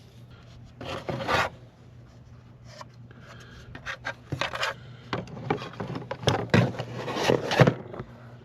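Irregular rubbing and scraping of truck side-mirror parts being handled and worked by hand, over a steady low hum.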